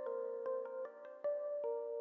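Soft instrumental background music: plucked or mallet-like notes over sustained chords, a new notes starting every few tenths of a second.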